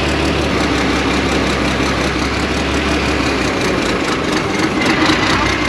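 The Alvis Stalwart's turbo diesel engine runs steadily, powering the Hiab crane's hydraulics as it carries a lifted load. Its low hum dips briefly a little past the middle.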